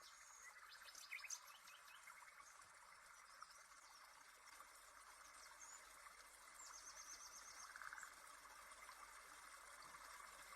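Very quiet ambience: a faint steady hiss with a few short, high chirps like small birds.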